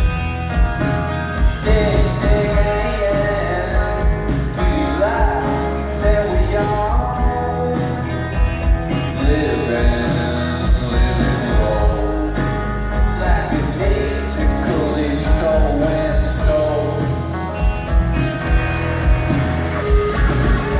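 Live rock band playing a song: strummed acoustic guitar with electric guitar, bass guitar and a steady drum beat.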